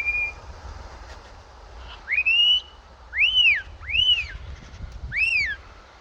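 Kites calling: four thin whistled calls, each rising and then falling in pitch, in the second half, after one short, steady whistle at the very start. Wind rumbles low underneath.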